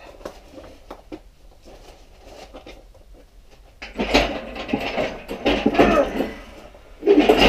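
Metal clanking and rattling from an engine hoist and the cast-iron engine hanging on its chain as the loaded hoist is shifted. Faint clicks at first, louder knocking about four seconds in, then a louder continuous clatter near the end as the hoist rolls over gravel.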